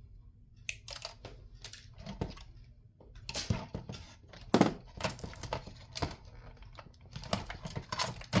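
Irregular clicks, taps and knocks of hands and a tool handling the insides of a radio as it is taken apart, starting about a second in, with the loudest knock about halfway through.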